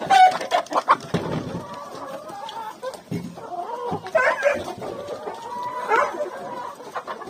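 Chickens clucking, with a longer drawn-out call near the end. A few sharp knocks and clatters in the first second or so.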